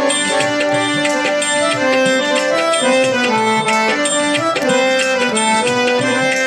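Harmonium playing a melodic instrumental interlude in a devotional song, stepping from note to note over a steady hand-drum rhythm.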